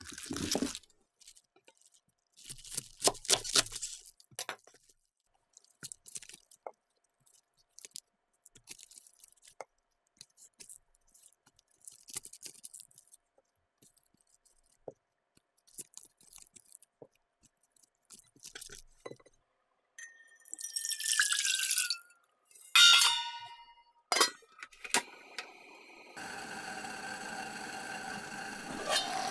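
Soft rustling and crinkling as napa cabbage leaves are handled and thin beef brisket slices tucked between them. About twenty seconds in, water pours into a stainless steamer pot, followed by sharp metal clanks of the steamer and its lid. A steady hum from the electric hob starts near the end.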